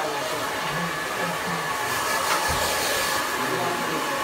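Handheld hair dryer running steadily, blowing loose cut hair off the client after the haircut: a continuous rush of air with a faint steady motor whine.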